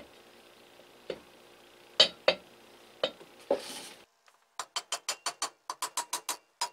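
Metal motor end cover knocking a few times as it is handled and seated on the pump's motor housing. About four seconds in, a fast, even run of mallet taps begins, about five a second, each with a short ring, tapping the cover into place.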